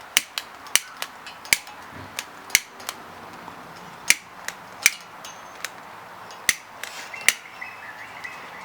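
Fire crackling in a fire pit as turps and oil burn off a dirt bike's exhaust pipe: sharp, irregular pops and cracks, about one every half-second to second.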